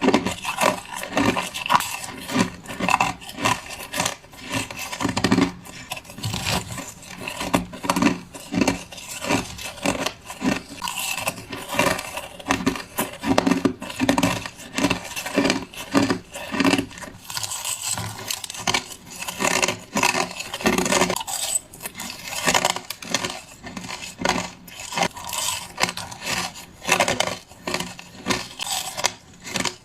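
A person biting and chewing crushed ice: a continuous run of sharp, crisp crunches, several a second, with no pause.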